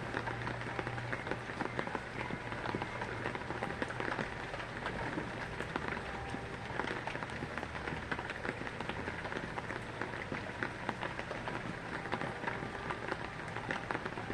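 Steady heavy rain falling and pattering on a surface, a dense hiss full of fine drop ticks.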